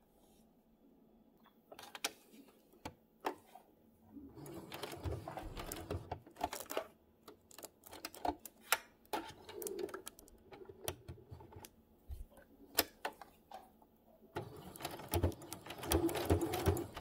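Electric sewing machine stitching a piece of Velcro onto a fabric strip. It runs in two spells of rapid stitching, from about four seconds in and again near the end, with scattered single clicks and short pauses between.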